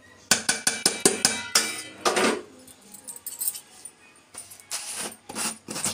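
Metal dish tapped several times in quick succession against a stainless steel mixing bowl, knocking the last flour out, with ringing clinks; a few more scattered clinks come near the end.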